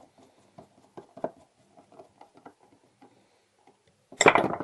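Faint clicks and scrapes of a Glutz tubular-frame mortise lock being handled on a workbench, then about four seconds in a loud, rapid run of metallic clicks and rattles.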